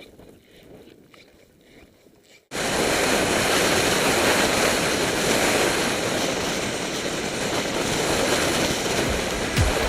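Steady rushing noise of skiing through deep snow, wind and skis on snow together, starting abruptly about two and a half seconds in.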